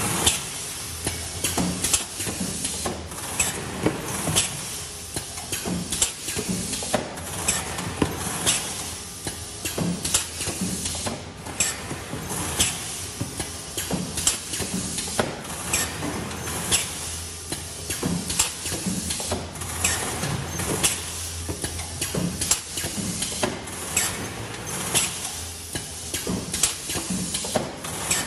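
Cobra 2100 case erector running through its cycle: short, sharp knocks and releases come about once or twice a second at uneven spacing over a steady low hum.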